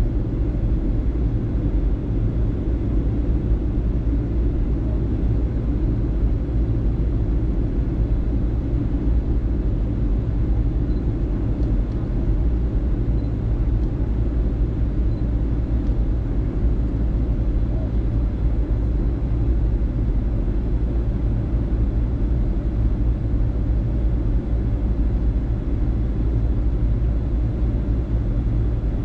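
Boeing 757-200 in flight: a steady low rumble of engine and airflow noise, with no change in pitch or level.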